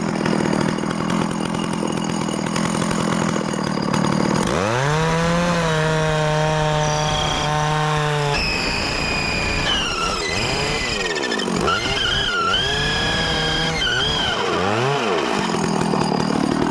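Small chainsaw-type engine running: it revs up about four and a half seconds in and holds a steady high speed, then its speed dips and climbs back several times.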